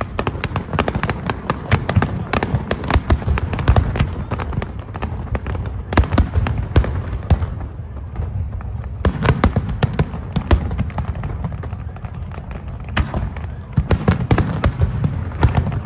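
Fireworks display with dense volleys of rapid bangs and crackling, easing briefly around the middle and again a little later before building back up.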